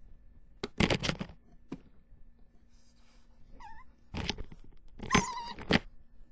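Three loud bursts of rustling and bumping close to the microphone, with a short wavering meow-like squeak in the middle.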